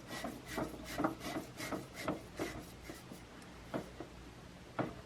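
Repeated rubbing and scraping strokes, about two a second, from hands working a 1-pound propane cylinder against a portable propane heater's fitting, thinning out to two light knocks near the end.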